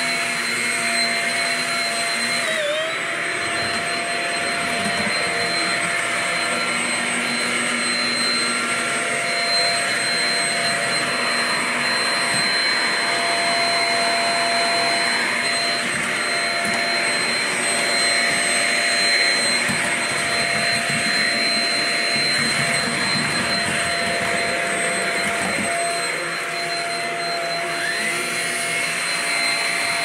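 Shark Rocket stick vacuum running steadily with a high motor whine. The whine's pitch dips briefly twice, about three seconds in and again near the end.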